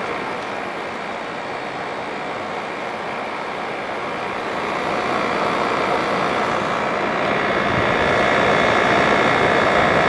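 1988 Fedders Cool Tote 5,000 BTU air conditioner running with its compressor on: a steady rush of fan air with faint steady tones, the compressor itself super quiet. It grows louder about halfway through.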